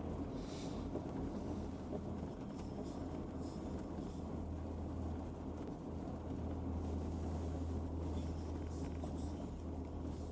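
A vehicle driving along, with a steady low rumble of engine and road noise.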